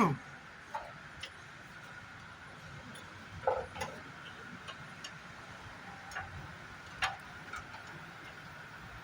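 Scattered light clicks and taps of metal and plastic parts and tools being handled while a clutch master cylinder is fitted into a Honda Civic FD, about seven in all, with a short falling squeak right at the start, over a faint steady high hum.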